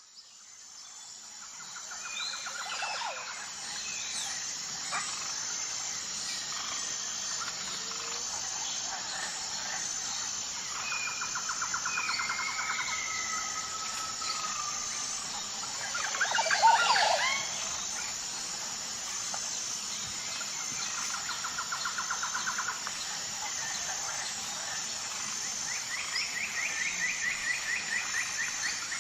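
Tropical jungle birds calling over a steady high buzzing drone with a regular pulse, fading in at the start. Several rapid trills repeat, with a few whistled glides. About sixteen seconds in comes one loud, full call, the loudest sound, and a faster trill comes near the end.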